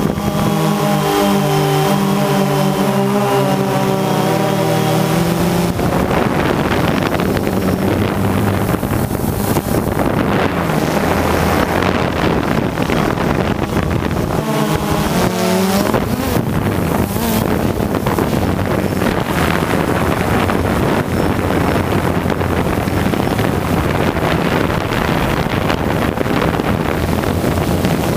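Steady, loud rushing of wind and motor noise on the microphone of a camera carried in flight. A droning motor tone with overtones stands out during the first six seconds and again briefly about fifteen seconds in.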